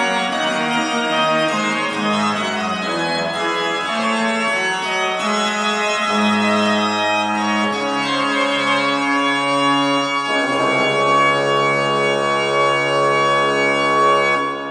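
1793 Holzhey pipe organ playing a Baroque French piece on its trumpet reed stop: a moving passage of changing notes, then a final chord held from about ten seconds in. The chord is released at the very end, leaving the church's reverberation.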